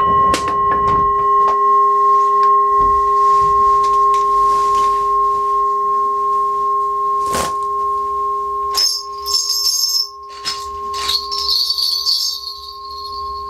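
Korean shaman's ritual bells shaken in jingling bursts in the second half. Through the whole stretch there is cloth rustling and clicking as ritual flags and a folding fan are handled, over a steady ringing tone that holds throughout.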